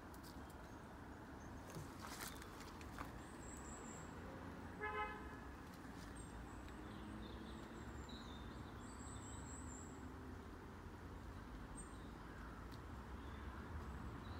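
Faint outdoor background of low, steady traffic rumble, with one short car horn toot about five seconds in and a few faint high bird chirps.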